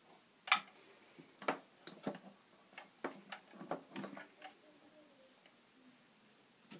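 Scattered light clicks and knocks of small toy figures and wooden dolls'-house furniture being moved and set down on wooden shelves, at uneven spacing, strongest about half a second and one and a half seconds in.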